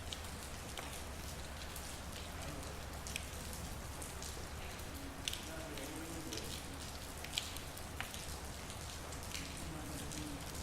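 Steady rain falling, with a few louder single drips hitting close by as sharp clicks.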